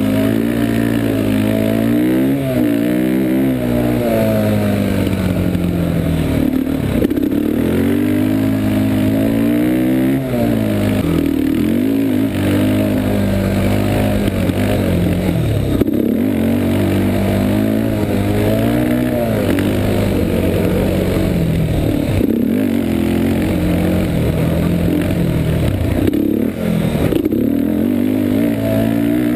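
Yamaha Warrior 350 ATV's single-cylinder four-stroke engine racing under hard throttle, heard from on board: the revs climb and drop back again and again as the throttle is opened and shut.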